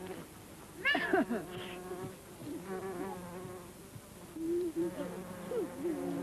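A flying insect buzzing, its drone wavering in pitch as it moves about, with a short, loud, sliding high-pitched call about a second in.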